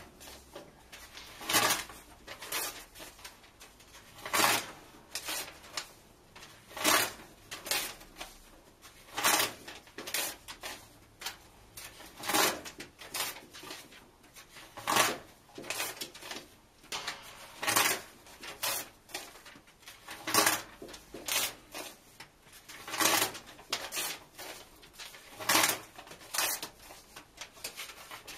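Paper book pages being ripped out and torn in half, one after another: a loud tearing rip about every two and a half seconds, with a shorter, quieter tear between.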